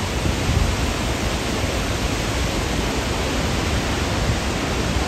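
Steady roar of falling water at Victoria Falls: an even rushing noise with an irregular low rumble underneath.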